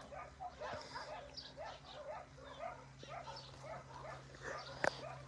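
Faint, many-voiced dog barking and yelping, short rise-and-fall calls repeating about two to three times a second, over a steady low hum, with one sharp click near the end.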